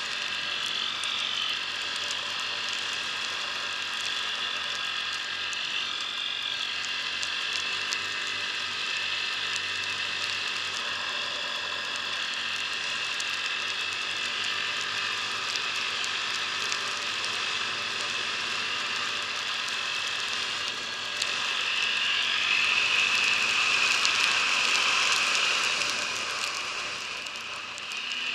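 ATV engine running while riding over a snow-covered road, with many small clicks over a steady whine. It gets louder about three-quarters of the way through, then drops briefly near the end.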